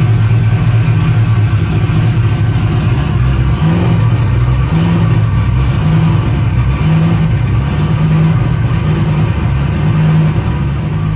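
Turbocharged 5.3-litre LS V8 on Holley EFI running on E85 shortly after a cold start, held at a fast idle of about 1,100 rpm with the foot on the gas, its note wavering slightly. The idle air control valve is not working, so the cold engine only stays running with throttle held.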